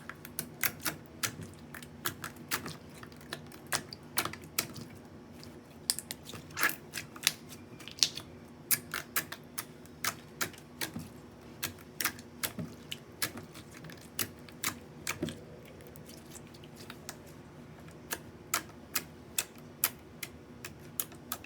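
Clear green slime being squeezed and pressed in the hands, making irregular sharp clicks and pops a few times a second, with a sparser stretch past the middle.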